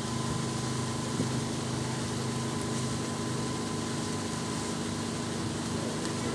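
Boat engine running with a steady low drone, heard from on board, with a thin steady whine above it.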